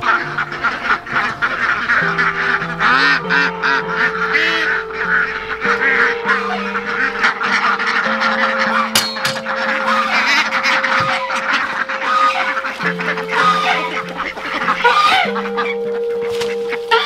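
A flock of young ducks and chickens calling together in a dense, continuous clamour of quacks and clucks as they crowd in to feed, over background music with slow, held chords.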